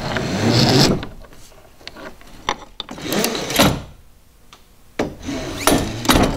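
Lift line of a Torqeedo Ultralight 403A kayak stern mount being pulled through its molded guide while the motor pivots on the mount: several short rubbing scrapes with a few sharp clicks, the first in the opening second, others around three seconds in and near the end.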